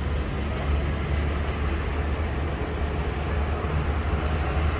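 Steady low rumble of engine noise with a hiss above it, unchanging throughout.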